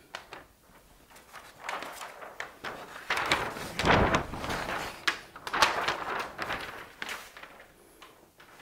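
Large paper sheets of a flip chart pad being lifted and flipped over the top, rustling and crackling in irregular bursts, with a heavy thump about four seconds in as the pages settle.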